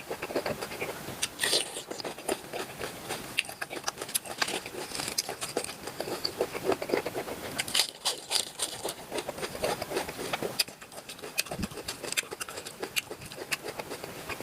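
Close-miked chewing of cooked octopus: irregular wet clicks, smacks and crackles of the mouth working the food.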